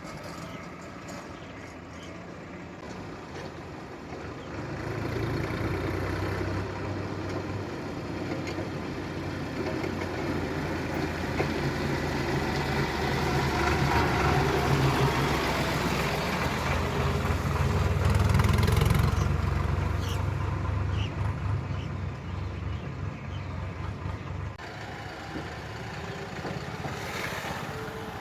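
Diesel engine of a JCB 3DX backhoe loader working while it loads a tractor. It runs steadily, then revs up about five seconds in, is loudest in the middle, and eases back down near the end.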